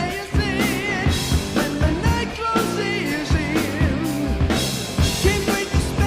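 Background rock song with a singing voice over drums and a steady beat.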